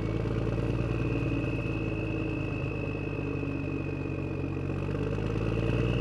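An engine idling steadily, with a thin high whine that rises slightly in pitch over the few seconds.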